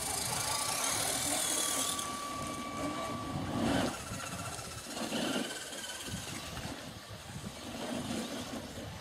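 A radio-controlled scale crawler's small electric motor and gearbox whining as it creeps over rough ground, the pitch shifting slightly; the whine cuts off about two seconds in, leaving low outdoor noise with a few short louder bursts.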